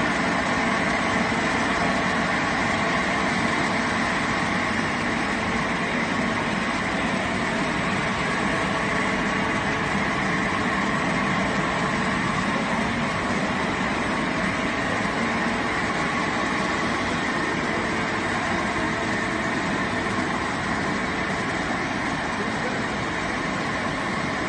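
KS-FLL65 blown film extrusion line running: a steady, even machine noise with a few faint held tones.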